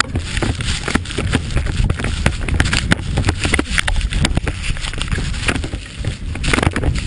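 Snowmobile running through deep powder: a heavy low rumble of engine and wind buffeting the microphone, with a steady crackle of snow spraying over the hood and striking the camera.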